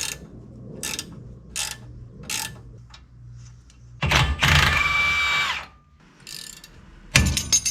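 Mechanic's tools working on a truck's front suspension: a few short ratchet-like clicks, then a power tool runs for about a second and a half and winds down, and a couple of sharp metallic knocks come near the end.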